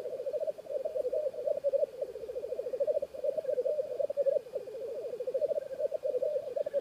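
Male black grouse giving its rookooing lek display song, a continuous fast-pulsing bubbling coo with no break.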